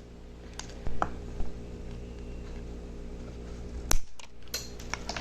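Scattered sharp clicks and taps of small hard parts and a hand tool being handled on a workbench, loudest about four seconds in and clustered near the end, over a steady low hum.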